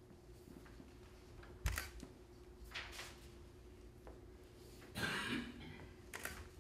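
Sheets of paper being leafed through and tossed: a few brief, crisp rustles and snaps, the first with a soft low thump and the longest about five seconds in, over a faint steady room hum.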